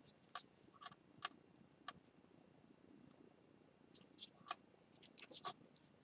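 Faint, irregular small clicks and taps of a broken ceramic bowl's pieces being handled and pressed into line, with a cluster of clicks near the end.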